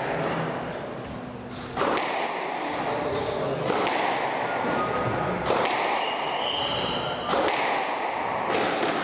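A squash rally: the hard rubber ball is struck by the rackets and smacks off the court walls, a sharp hit about every two seconds, with short squeaks between hits.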